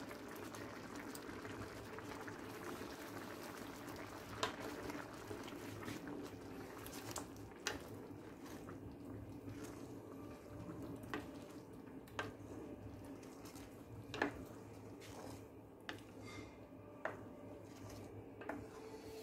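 Blended green sauce pouring from a blender jar into a clay pot of fava beans, then simmering and bubbling while a wooden spoon stirs it, with several sharp knocks of the spoon against the pot.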